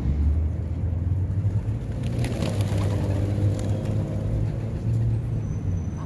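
Steady low rumble of road traffic, busier for a second or so near the middle.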